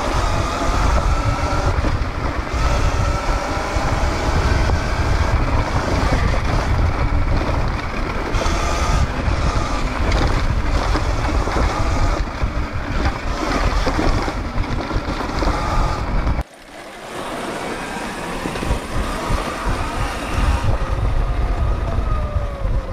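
Electric dirt bike riding on a dirt trail: wind buffeting the microphone over the whine of the electric motor, which rises and falls in pitch with speed. The wind rumble drops away suddenly about two-thirds of the way through, then builds again.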